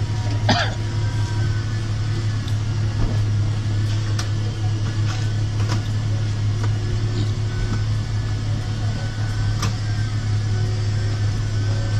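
A car running, heard from inside its cabin: a steady low hum with a few scattered light clicks.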